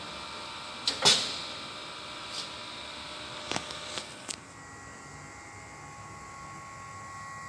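Heat staking machine's steady electrical hum with faint steady tones, broken about a second in by one loud, sharp, hissy burst that dies away quickly, then a few short clicks around the middle.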